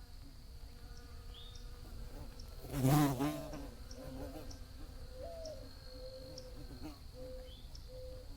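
Bees buzzing, their wavering hum coming and going, with one bee passing close about three seconds in, loud for a moment and bending in pitch as it goes by. A steady faint high-pitched tone runs underneath.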